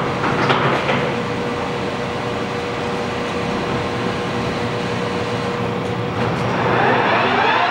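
American Tool Works heavy-duty engine lathe with its 15 hp main drive running steadily while the spindle is stopped for a speed change, with a few clunks in the first second. About six seconds in the spindle is engaged and its gear whine rises in pitch as it spins up to speed.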